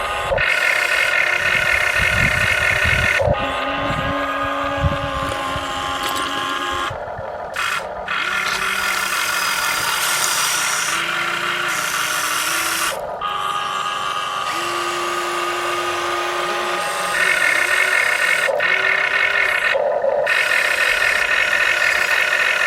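Small electric motors of toy construction vehicles whining steadily, in a run of short clips that change abruptly every few seconds, the pitch stepping up or down at each cut.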